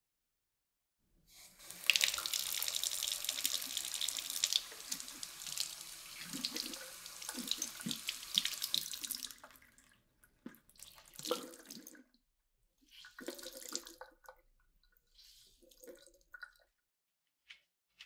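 Kitchen tap running into a sink for about eight seconds, starting about a second in and stopping sharply. After it come a few short splashes and handling sounds as a wet microfibre cloth is wrung out over the sink.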